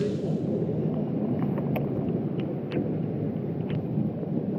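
Low, steady rumble on the microphone, with a few faint sharp ticks scattered through.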